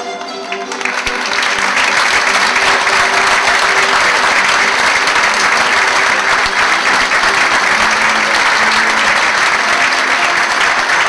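Audience applauding, swelling up about a second in and holding steady. The plucked-string band's music carries on faintly under the clapping.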